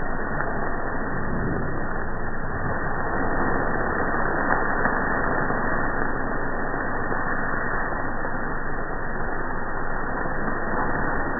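Steady rushing noise of grill flames flaring up and chapli kabobs sizzling, slowed down and pitched low by slow-motion playback so that it has no high sounds and comes across as an even rumble.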